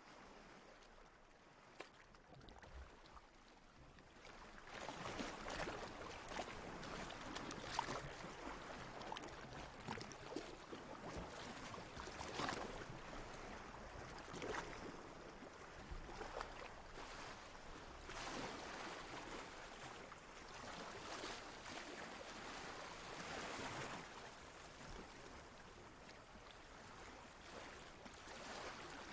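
Sea water lapping and splashing in small washes, faint for the first few seconds and then swelling about four seconds in, with light crackling splashes throughout.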